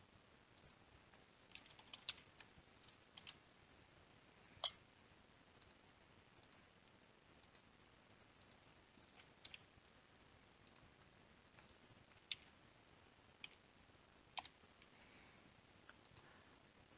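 Faint, irregular clicks of a computer mouse and keyboard over quiet room tone, a cluster about two to three seconds in and single clicks scattered after.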